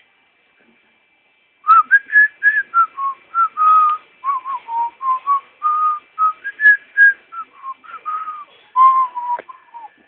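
A person whistling a simple tune of short and held notes, beginning a couple of seconds in.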